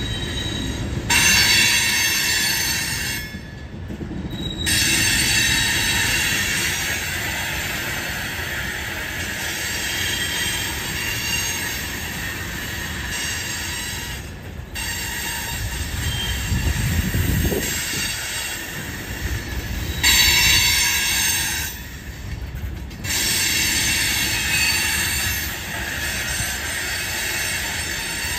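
Covered hopper cars of a loaded grain train rolling past, with high wheel squeal that comes and goes over a steady low rumble of wheels on rail.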